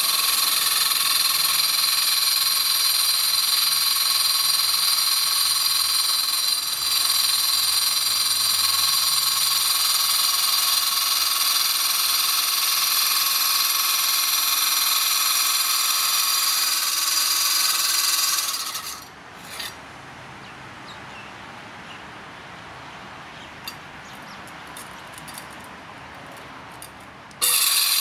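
Makita CC301D 12-volt cordless glass and tile cutter, a brushed-motor saw with a slow diamond blade, running with a steady high-pitched whine as it cuts into a thin glass bottle under its water feed. The saw's sound stops abruptly about two-thirds through, leaving a quieter stretch with a few faint ticks, then comes back suddenly just before the end.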